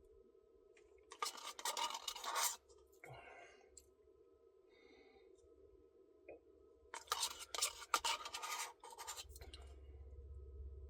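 Two bursts of scratchy scraping, each lasting a second or more, one near the start and one about seven seconds in, over a faint steady hum.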